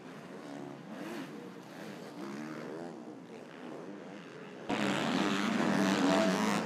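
Motocross bike engines revving up and down through the gears as riders race round the track. About two-thirds of the way in, the sound jumps abruptly to a louder, closer engine.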